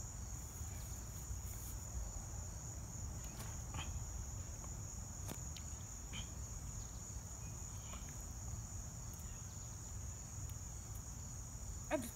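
Faint, steady high-pitched chorus of crickets, an unbroken even trill.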